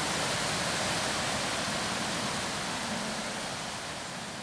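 Steady rush of falling and running water from a jungle waterfall and its stream.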